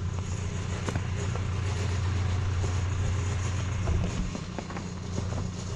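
John Deere 310C backhoe's diesel engine running steadily as the machine travels, with a few light knocks and rattles over the drone.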